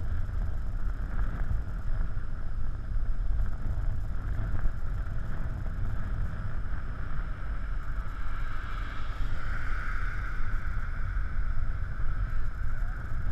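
Wind buffeting the microphone of a camera mounted low on a moving recumbent bicycle, a steady rumble with a higher rushing hiss above it that swells about nine to ten seconds in.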